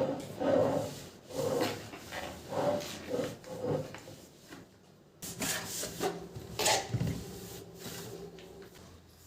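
Rubbing strokes on a surface, about one a second, as in wiping or scrubbing during cleaning. About five seconds in the sound changes suddenly to a faint steady hum with a few knocks.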